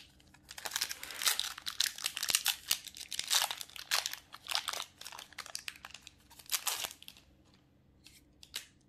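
Foil wrapper of a Magic: The Gathering collector booster pack crinkling and tearing as it is ripped open and peeled back by hand, for about six seconds. Near the end come two light clicks.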